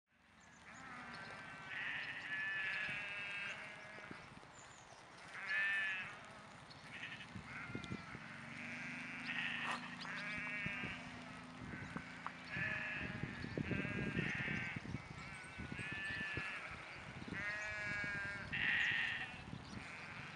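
A flock of sheep bleating, many calls one after another and overlapping, some with a wavering, quavering pitch.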